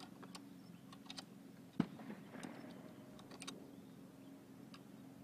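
Faint scattered light clicks and ticks over a low steady hum, with one sharper knock about two seconds in.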